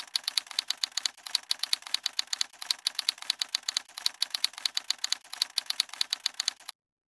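Typewriter-style typing sound effect: a fast, even run of key clicks, about eight a second, that stops abruptly near the end.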